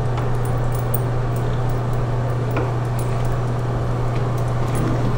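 Bathtub tap running into the tub: a steady wash of water over a steady low hum, with a few faint clicks.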